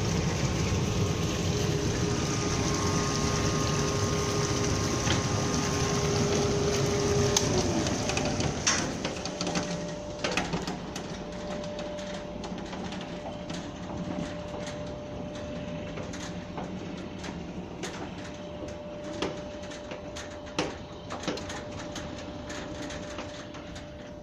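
Plunge-pool jet pump running, a steady motor hum over rushing water, which falls in pitch and winds down to a stop about eight seconds in. Afterwards a fainter steady hum remains, with scattered light clicks and knocks.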